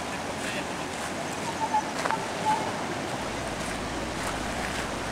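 Steady rushing of a rain-swollen stream overflowing as muddy floodwater across a gravel track, with a few faint clicks.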